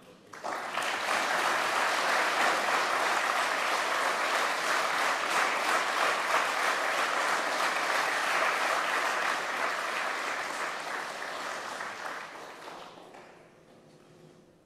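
Audience applauding: a room full of people clapping. It starts suddenly, holds steady, then thins out and dies away over the last few seconds.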